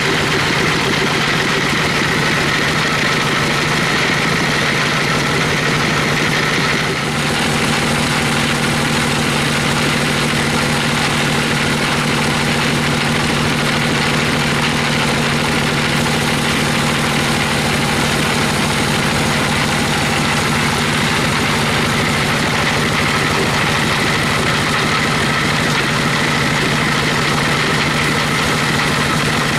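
Band sawmill's drive engine running steadily with the saw turning but not cutting, a constant mechanical drone whose tone shifts slightly about seven seconds in.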